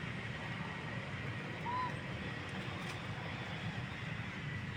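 Steady outdoor background noise with a low rumble and a faint, steady high tone, and one short chirp just under two seconds in.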